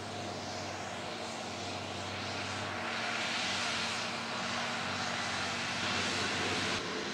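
New Holland tractor's diesel engine running steadily under load while pulling a seedbed cultivator, with a broad hiss that grows louder in the second half and drops off suddenly near the end.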